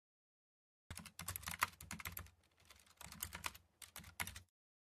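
Typing sound effect: a rapid clatter of key clicks in a few quick runs with short pauses, starting about a second in and stopping abruptly, as a title is typed out letter by letter.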